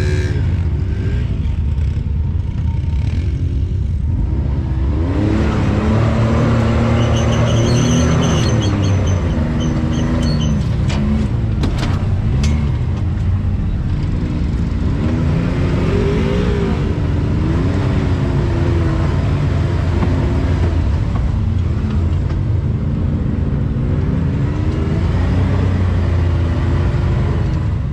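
Side-by-side UTV engine running under load and revving up and down repeatedly as the throttle is worked on and off.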